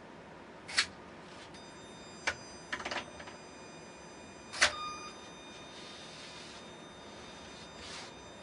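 Small hobby humanoid robot being handled and hooked onto a horizontal bar: a few sharp plastic clicks and clacks, the loudest about halfway through as it catches the bar. After about a second and a half a faint, steady high electronic whine from its powered servos sets in and stays, with a couple of soft hissing rustles near the end.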